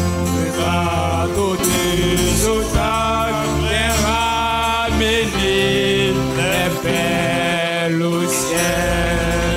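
Gospel worship music from a church band: a man singing over guitar and a steady bass line.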